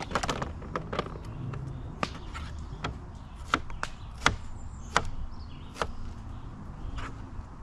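Knife chopping a pepper: sharp, irregular knocks, a quick run of them at the start, then single chops about a second apart.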